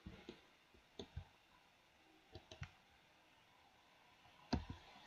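Faint clicks of a computer mouse and keyboard: a handful of short, separate clicks, some in quick pairs.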